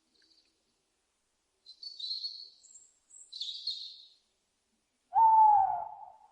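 Owl calls: two high, hissing screeches in quick succession, then about five seconds in one loud hoot that falls slightly in pitch.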